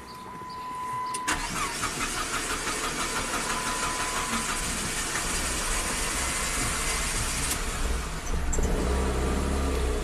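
2005 Chrysler PT Cruiser's 2.4-litre turbo four-cylinder cranking on the starter for about seven seconds with its camshaft position sensor unplugged, then catching near the end and running poorly on the crank sensor alone. A steady high tone sounds for about the first second before the cranking starts.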